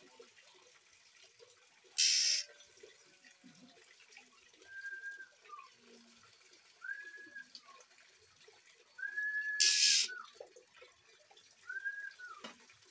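A juvenile oriental magpie-robin giving four drawn-out whistles, each held on one pitch and sliding down at the end, a couple of seconds apart, over a faint steady trickle of flowing water. Two short, loud hissing bursts, about two seconds in and again near the middle, are the loudest sounds.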